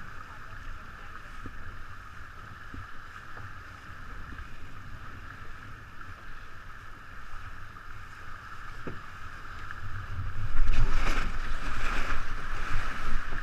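Wind and water rushing past a 49er skiff sailing under spinnaker, with wind rumbling on the microphone and a steady hiss. About ten seconds in the rushing gets much louder and rougher as the boat turns and slows.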